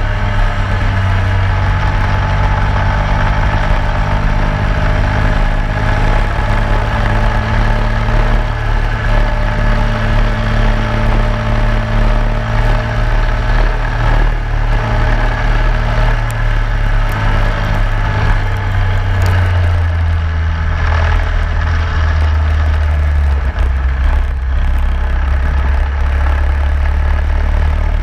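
A racing go-kart's engine running hard on track, heard close up from on board the kart. The engine note holds fairly steady, then shifts lower about two-thirds of the way through.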